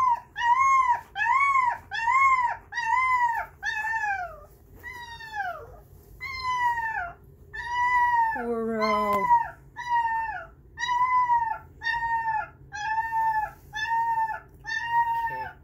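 A young puppy crying and howling in distress, a long string of short, arched, high-pitched cries at about two a second, with one lower call sliding down in pitch around the middle. The crying is set off by music playing in the room, the first music the puppy has heard since its ears opened.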